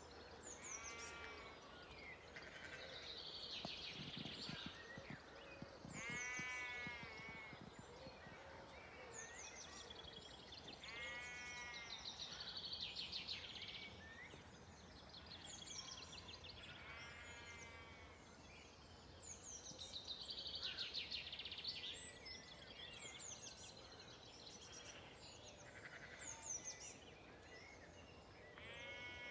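Sheep bleating faintly, five long bleats about five seconds apart, over a dawn chorus of many birds singing.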